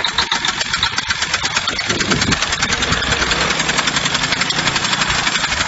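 Small engine of a homemade motorcycle built from a wooden utility pole, running with a rapid, even beat as the bike moves off.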